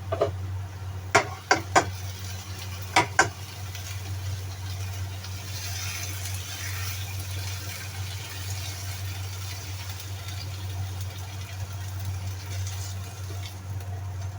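A steady low hum throughout, with five sharp knocks in two quick groups in the first few seconds and a soft hiss in the middle.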